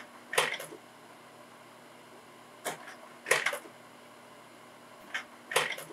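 Rotary-tray (carousel) slide projector changing slides: three mechanical clack-clunk slide changes, each a quick double click, about two and a half seconds apart, over a steady low hum.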